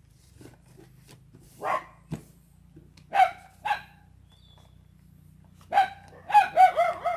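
A dog barking off and on: a single bark, then two, then a quick run of about five near the end, over faint crinkling of paper being folded by hand. A single sharp knock comes about two seconds in.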